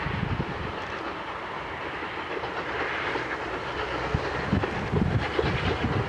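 Steam locomotive working hard as it hauls a rake of passenger coaches along the line, its exhaust and the running of the train making a steady rush with irregular low thumps that grow stronger about four seconds in.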